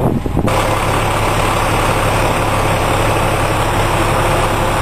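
Fire engine idling, a loud steady engine noise with a low hum that comes in suddenly louder about half a second in.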